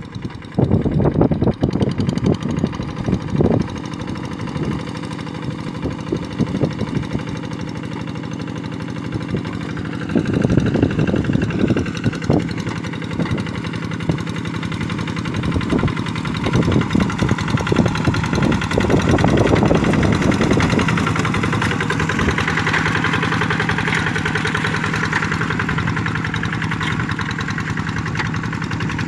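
Kubota RD85 single-cylinder diesel engine of a two-wheel hand tractor running steadily under load as it drags a levelling log through a flooded rice paddy, louder in the second half as it comes close. Irregular low thumps sound over it in the first part.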